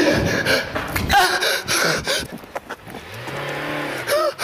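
Car running, heard from inside the cabin, with an engine note that rises and falls gently from about three seconds in.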